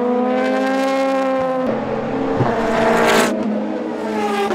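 Le Mans prototype race car engine running at high revs. Its pitch climbs, changes suddenly twice, and falls near the end.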